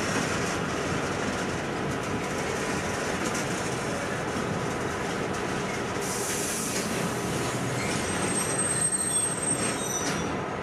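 EMD diesel locomotives idling steadily at the head of a standing freight train. A brief high hiss comes about six seconds in, and a thin high whine runs from about eight seconds to just past ten.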